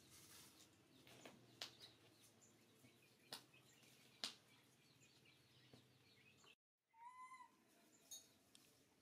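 Faint, mostly quiet mouth sounds: a baby monkey licking and sucking at a small plastic cup, with a few sharp clicks spaced a second or so apart. Near the end comes one short, high, arching call.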